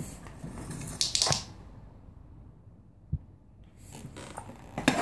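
A short burst of rustling from a clear plastic item handled on the floor, as a small dog noses at it and a hand moves it. A single soft thump comes about three seconds in.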